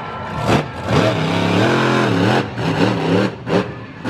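Monster truck engine revving hard, its pitch swinging up and down in waves, with a few sharp bangs as the truck drives over and lands on crushed junk cars.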